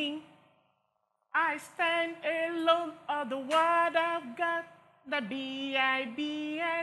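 A woman singing a worship song, holding long notes in short phrases, with a brief pause about a second in.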